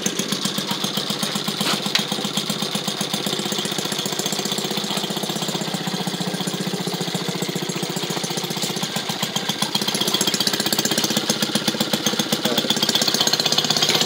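Maytag washing machine's small two-stroke gasoline engine running steadily with a rapid, even popping, driving the agitator through a load in the tub of water. It gets a little louder about ten seconds in.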